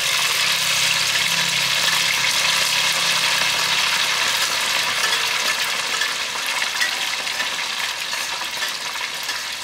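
Hot oil sizzling loudly around a fresh batch of small climbing perch just put in to deep-fry, with no flour coating. The sizzle eases off slowly over the seconds.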